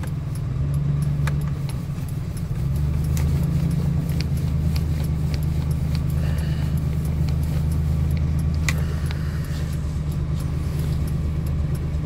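1990 Chevy pickup's engine idling with a steady low hum, with the turn-signal flasher clicking regularly, about twice a second.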